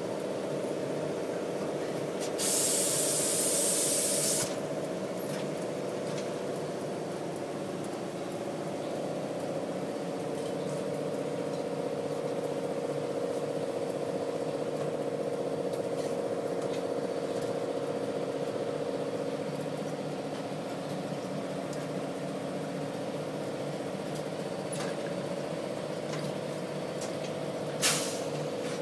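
Forenta Bantam laydown press running with a steady hum, broken by a loud hiss lasting about two seconds a couple of seconds in and a short, sharp hiss near the end.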